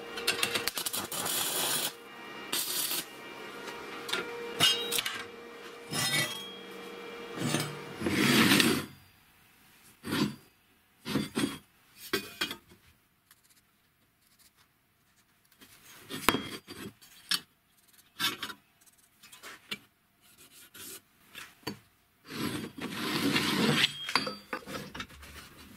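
Steel workpieces handled on a steel table and a bench vise: scattered clinks, knocks and metal-on-metal scraping, busiest in the first part, with a louder stretch of scraping and rubbing near the end.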